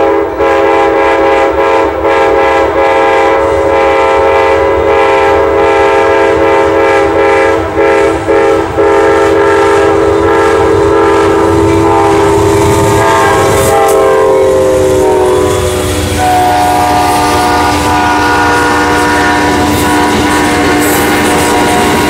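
Amtrak GE Genesis diesel locomotive's multi-note air horn blowing as the train comes through at speed. It sounds a few blasts with short breaks over the first several seconds, then one long blast whose chord drops in pitch as the locomotive passes, about two-thirds of the way in. The rumble and clatter of the passing train grows beneath the horn.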